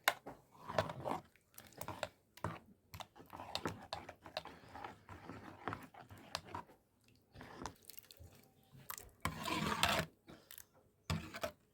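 Someone eating close to the microphone: irregular chewing and biting with small clicks, and a louder noisy stretch about nine seconds in.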